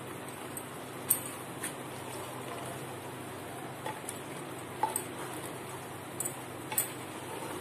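Spatula stirring spice paste into mutton pieces in a pressure cooker pot, with scattered light knocks and scrapes of the spatula against the pot over a steady low hum.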